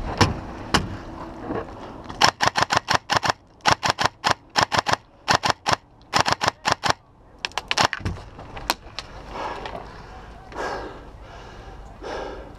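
Electric MK18-style airsoft rifle firing close to the microphone: quick strings of sharp single shots, about six a second, in several bursts over some five seconds, then two more lone shots.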